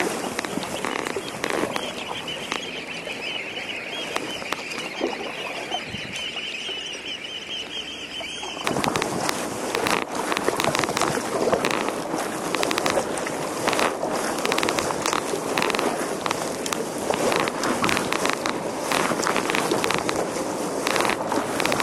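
Kayak paddling: water splashing and lapping against the hull. For the first eight seconds or so there is a steady high chittering over it. Then the sound switches abruptly to louder rushing noise, wind on the microphone with quick paddle splashes.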